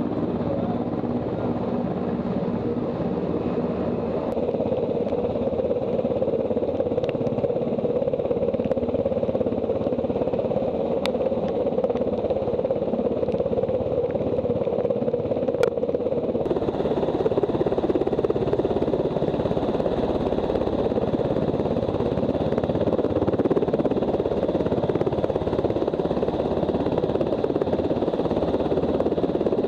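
Coast Guard MH-60T Jayhawk helicopter running close by: the steady, loud noise of its twin turboshaft engines and rotor. The tone shifts abruptly twice, about four and sixteen seconds in.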